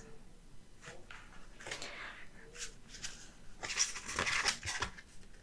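Oracle cards being handled: soft sliding and rustling of card stock, with a few light taps, as the next card is drawn.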